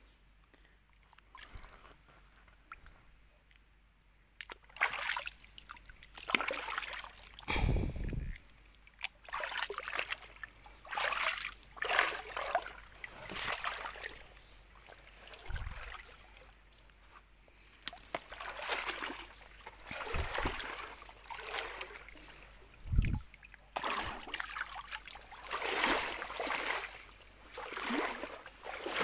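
Shallow stream water splashing and sloshing as someone moves through it, in repeated surges every second or two after a quiet start. A few low thumps are mixed in.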